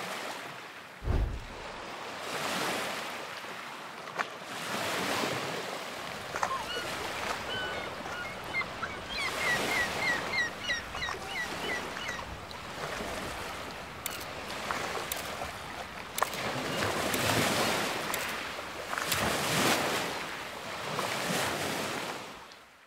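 Waves washing in and drawing back in slow swells, with a bird giving a quick run of short chirps in the middle, and a low thump about a second in.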